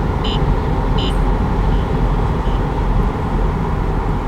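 Cabin noise of a C8 Corvette's V8 and tyres at about 65 mph: a steady road and engine rumble. Two short electronic chimes come about three-quarters of a second apart in the first second, followed by two fainter ones.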